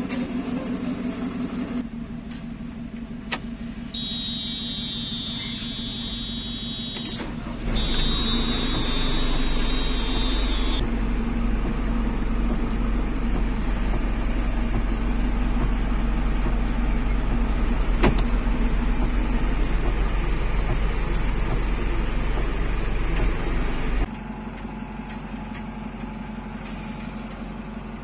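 Diesel engine of a JCB 3DX backhoe loader running steadily, heard across several short clips with abrupt changes. It is louder with a deep rumble through the middle stretch. A steady high-pitched tone sounds twice for a few seconds near the start of that stretch.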